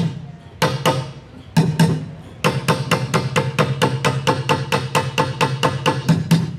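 Bucket drumming: drumsticks beating overturned white plastic buckets, with a deep thump on each hit. Two single strikes come first, then from about two and a half seconds in a fast, even run of strokes.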